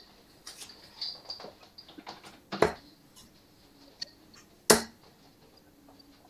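Darts thrown into a Winmau bristle dartboard: two sharp thuds about two seconds apart, with a few faint clicks between them.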